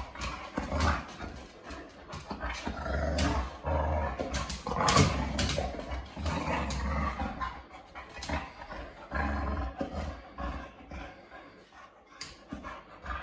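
Boxer dog growling and grumbling in play, in uneven vocal bursts, loudest about five seconds in.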